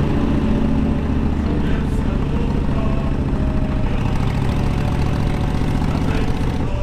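Honda VTX motorcycle's V-twin engine running steadily as the bike is ridden along, with a low, even beat.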